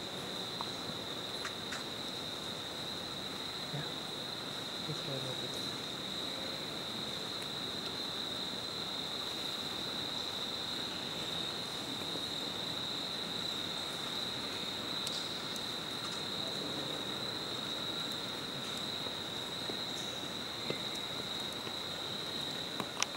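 Insects shrilling steadily at one high pitch, cricket-like and unbroken, over a background hiss.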